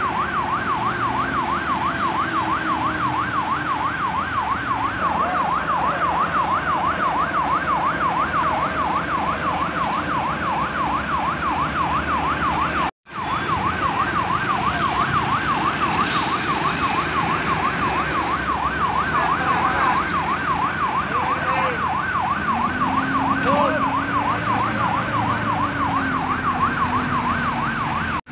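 Electronic warning siren on a heavy truck sounding a fast, continuous warble, with truck engines running beneath. The warble drops out for an instant about 13 seconds in.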